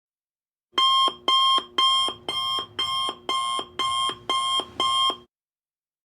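Electronic alarm beeping: nine short, even beeps, about two a second, which then stop.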